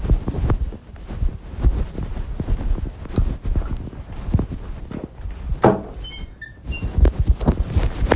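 Irregular low thumps and rubbing, several a second, with a louder scrape past the middle and a few brief high chirps soon after.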